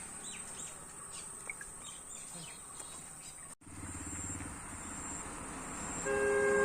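Rural outdoor ambience with a steady high-pitched insect trill and faint chirps. After a brief dropout, a louder held sound of several steady pitches comes in near the end.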